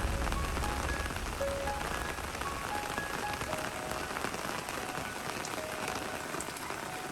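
Steady rain falling, a continuous even patter, with a few short faint tones sounding here and there.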